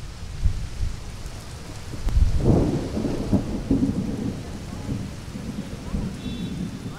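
Steady rain falling, with a roll of thunder that swells about two seconds in and rumbles on, slowly fading.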